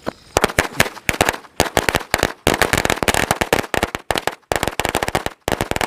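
A string of 100 firecrackers (a ladi) going off in a rapid, irregular chain of sharp bangs, with short gaps between clusters.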